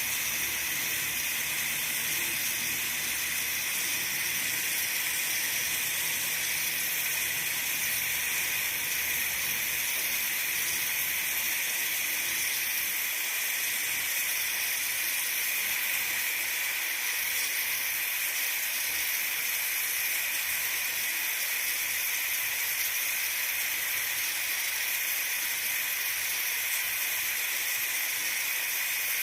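Pressure cooker venting steam through its valve: a steady hiss.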